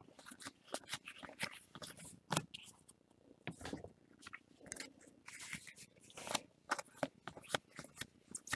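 Trading cards being handled and flipped through the hands: an irregular run of soft clicks and short scrapes.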